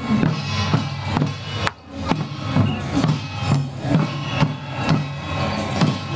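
Upbeat flower-drum (huagu) dance music with a steady drum beat, about two beats a second. The sound drops away briefly just before the two-second mark.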